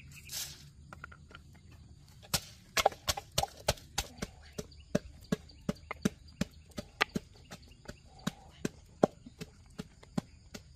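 Freshwater mussel shells set down one after another on a flat stone slab, a string of sharp clacks about two a second from a couple of seconds in, with a brief rustle near the start.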